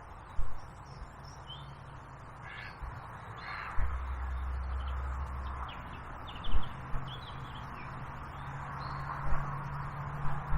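A crow cawing twice, about two and a half and three and a half seconds in, with small birds chirping faintly. Wind rumbles on the microphone, and there are a couple of dull knocks.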